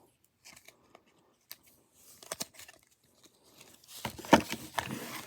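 Packaging being handled: a few faint clicks, then crinkling and rustling from about four seconds in.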